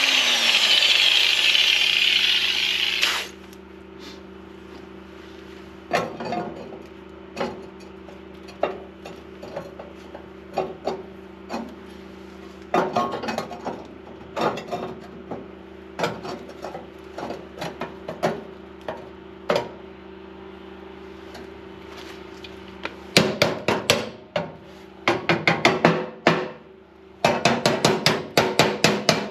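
An angle grinder grinds steel for about three seconds and stops suddenly. Then, over a steady low hum, metal is struck with a hammer: single knocks a second or so apart at first, then quick runs of blows in the last six seconds.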